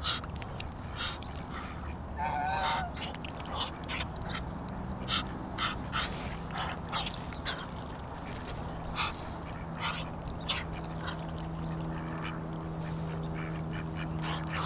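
Muscovy duck making short, breathy huffing sounds over and over, the dog-like noise it is known for, with a brief warbling call about two seconds in. A steady low hum sets in about four seconds in and grows stronger near the ten-second mark.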